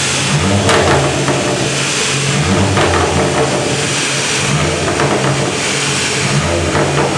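Turbocharged Ford Focus ST engine running through a very loud exhaust. The engine note swells and eases several times.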